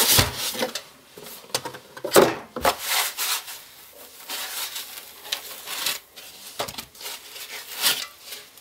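Cardboard and foam packaging being handled: the inner box is shuffled and white foam packing blocks are scraped and pulled off a CPU tower cooler, with irregular rubbing and a few sharp knocks.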